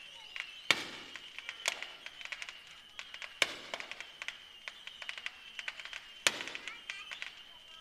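Aerial fireworks bursting: four bangs, with fast crackling between them.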